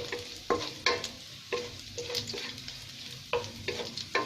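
Garlic and onion sizzling in hot olive oil in a pan, with a utensil knocking and scraping against the pan at irregular moments as it is stirred.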